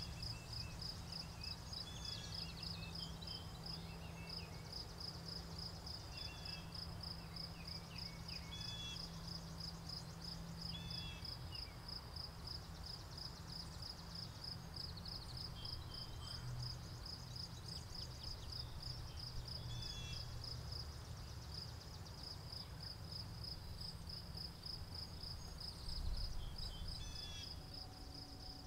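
Crickets chirping in a steady, evenly pulsed high trill, with short scattered bird calls over a low rumble of wind. A brief low thump near the end.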